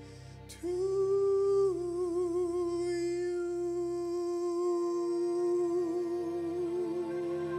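A man's solo singing voice holding one long final note with a slight vibrato, starting about half a second in, over soft sustained accompaniment.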